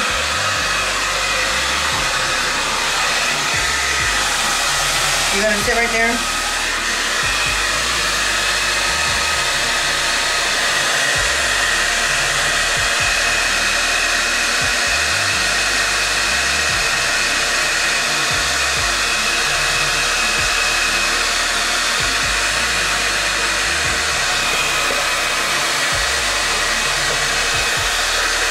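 Handheld hair dryer blowing steadily at close range while drying a wet puppy's coat.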